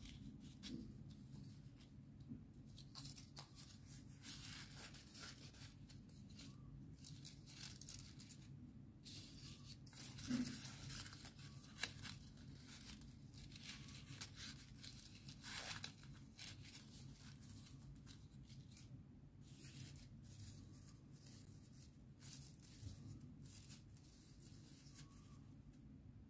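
Faint rustling and crinkling of origami paper handled in the fingers as kusudama curler units are folded and slotted together, in many short scratchy rustles with a couple of sharper crackles a little after the ten-second mark.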